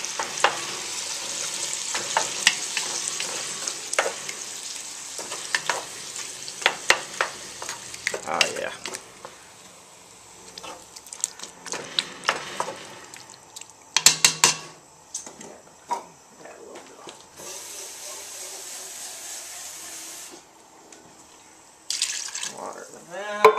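Pork rib chunks frying and sizzling in lard in a Dutch oven, with a metal utensil clicking and scraping against the pot. The sizzle dies down over the first several seconds, and a few seconds of steady hiss come about three-quarters through.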